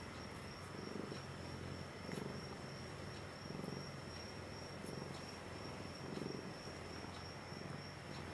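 Cat purring close up while being stroked, the purr swelling and easing in slow waves about every second and a half.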